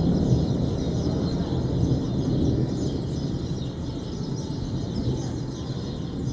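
Thunder rumbling after a nearby lightning strike, slowly dying away, with faint bird chirps above it.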